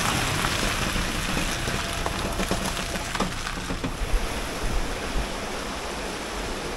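A motor vehicle passing on a forest track: a rushing of tyres and engine with a low rumble, loudest at first and slowly fading.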